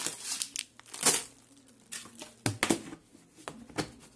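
Plastic food packets crinkling as they are handled and packed into a lidded plastic storage container, with a few sharp knocks spread through.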